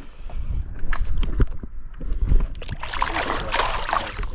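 Steady low rumble with scattered short clicks and knocks, and a louder noisy rustle about three seconds in.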